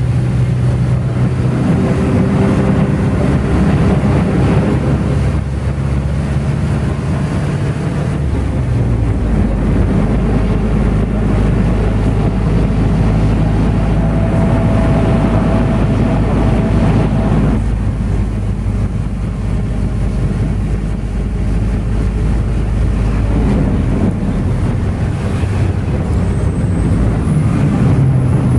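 Engine and road noise heard from inside a moving minibus (marshrutka): a steady drone whose low engine note shifts a few times, about a third of the way in, a little past halfway and again near the end.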